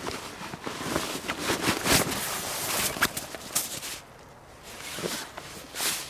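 Nylon fabric of a backpack and a strapped compression stuff sack rustling and rubbing as they are handled, with small knocks and scrapes mixed in. It is busiest for the first four seconds, then eases to two short rustles near the end.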